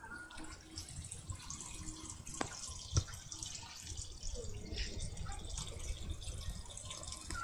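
Small garden water feature trickling and dripping: water spills from a tipped pot into a rock-edged pond, with a few sharper drips. A low wind rumble sits underneath on the microphone.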